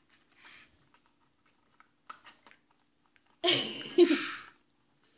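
Faint rustles and clicks of a small cardboard toy carton being folded by hand. About three and a half seconds in, a loud wordless vocal outburst from a child lasts about a second.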